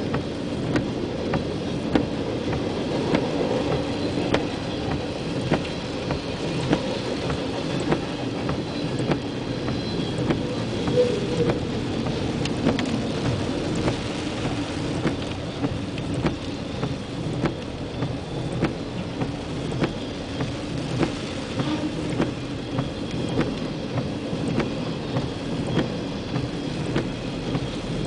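Freight train rolling past with a steady rumble, its wheels clicking over rail joints about once a second, with rain falling.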